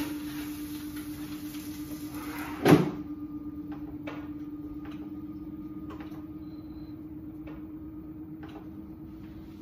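Air fryer with a steady hum and a rushing hiss. About three seconds in comes one loud clunk as its basket drawer is pulled open, and the hiss stops. A few light clicks and rustles of handling follow.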